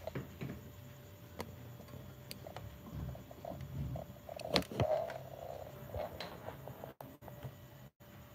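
Faint kitchen handling noises: scattered light clicks and knocks, the sharpest about four and a half seconds in, over a faint steady hum. The sound cuts out completely for moments twice near the end.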